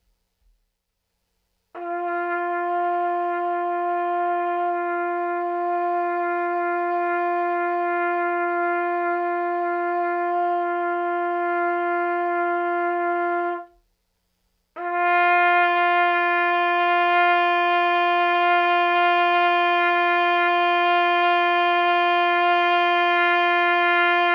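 Trumpet holding two long F notes, each about eleven to twelve seconds. The first is played high on the pitch with the tuning slide pulled out to compensate, so it reads in tune but is not full. After a one-second gap, the second is played in the center of the pitch with the slide set right, and it is louder and fuller.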